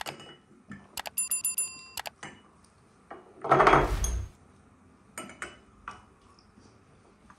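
Metal cutlery and dishes clinking at a meal: a quick run of bright ringing clinks about a second in and a few more a little later. About halfway through comes one louder, short, muffled rush of noise.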